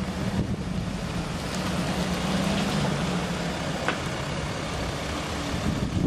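A large vehicle's engine running steadily, its hum dropping slightly in pitch about halfway through.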